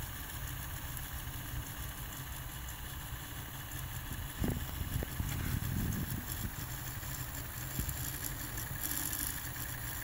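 Tandberg TCD 340 A cassette deck's tape transport running in play, a steady low mechanical hum with a couple of light clicks about halfway through.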